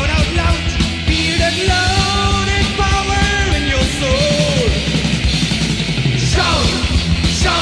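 Heavy/speed metal played by a full band: a dense, loud wall of drums and bass under a high melodic line that is held with vibrato and bent in pitch, with sweeping pitch slides near the start and again about six seconds in.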